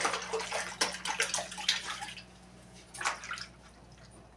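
Water splashing in a laundry tub as hands scoop water over a small dog and rub its wet coat during a bath. Irregular splashes for about two seconds, then quieter, with one more splash about three seconds in.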